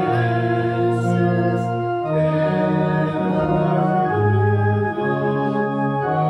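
Organ playing slow, sustained chords, the bass note changing about every second.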